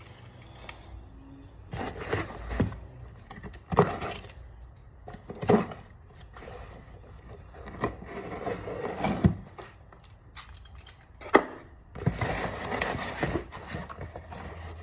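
Pocket knife cutting the packing tape on a cardboard shipping box, with scattered scrapes and knocks as the box is handled. A longer stretch of cardboard rustling near the end as the flaps are opened.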